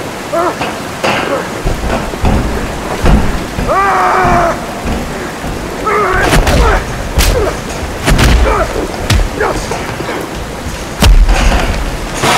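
Steady hiss of falling water like heavy rain, broken every second or two by heavy thuds of blows in a fistfight, with short strained grunts from the fighters. The loudest thud comes near the end.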